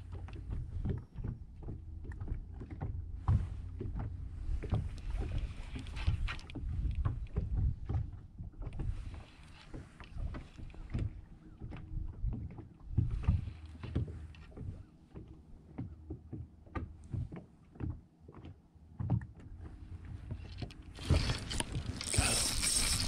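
Water lapping and knocking against a small fishing boat's hull, in uneven low thumps with gusts of hiss that come and go. A louder, steady rushing hiss comes in near the end.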